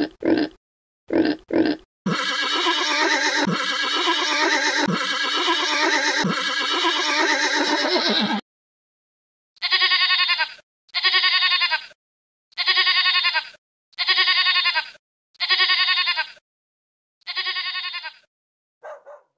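A run of farm-animal sound clips: a pig grunting in two quick pairs, then a horse sound looping for about six seconds, then a goat bleating six times at even intervals, each bleat about a second long.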